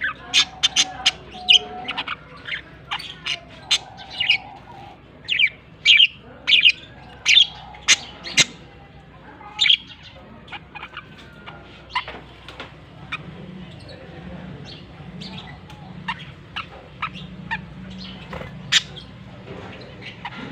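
Budgerigars chirping: many quick, sharp chirps, coming thick and fast for the first half and more sparsely in the second.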